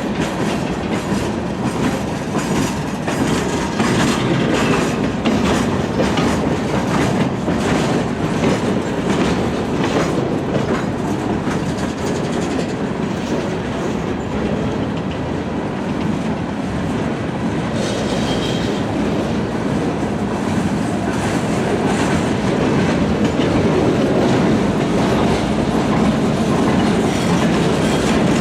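Freight train rolling by, its wheels clicking over rail joints in an irregular clatter.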